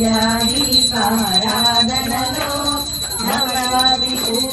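A voice singing an aarti hymn in long held notes, with a bell ringing steadily.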